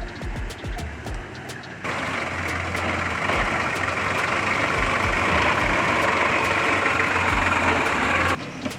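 Four-wheel drive vehicle on a steep, rough track: a low engine drone with knocks and rattles. About two seconds in, a loud steady rushing hiss starts and runs until it cuts off abruptly near the end.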